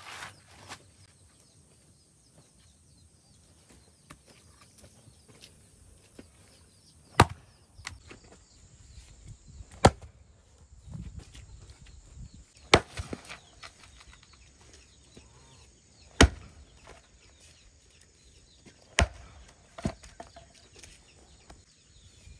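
Chopping blows into wood: five or six sharp strikes, spaced two to three and a half seconds apart, starting about seven seconds in.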